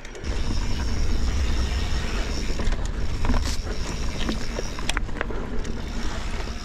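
Mountain bike ridden on rough singletrack: tyres rolling over dirt and roots, with irregular clicks and rattles from the bike, over a steady low rumble of wind on the camera microphone.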